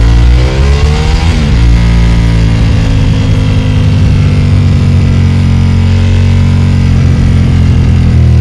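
Ducati XDiavel S's 1262 cc L-twin through a full Termignoni exhaust, rising in pitch under acceleration, then dropping sharply about a second and a half in as it shifts up a gear, and running steadily at cruising speed after that.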